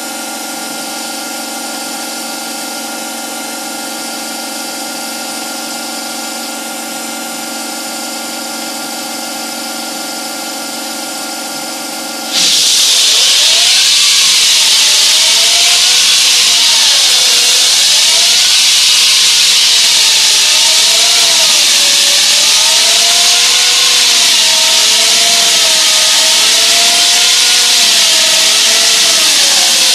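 Hydraulic diamond wall saw cutting reinforced concrete. For about twelve seconds it runs with a steady hum of several fixed tones. Then it suddenly becomes much louder: the hiss and grind of the diamond blade in the concrete, with a whine that wavers up and down in pitch.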